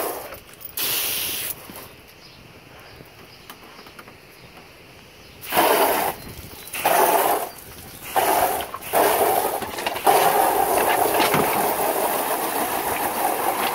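Water spray from a garden hose, a noisy hiss in bursts of about a second at a time, then running steadily from about ten seconds in.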